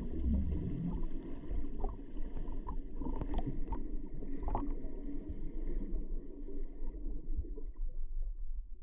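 Underwater ambience picked up by a camera in its waterproof housing: a steady, muffled low rumble of moving water, with a few faint clicks.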